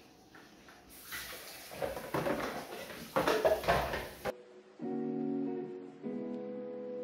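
Background acoustic guitar music. For the first few seconds a loud, noisy scratching sound lies over it, then cuts off suddenly, leaving the guitar music alone.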